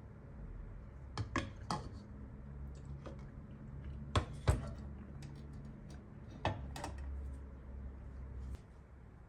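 A few sharp clicks and knocks, the loudest two close together near the middle, over a low steady hum that stops near the end.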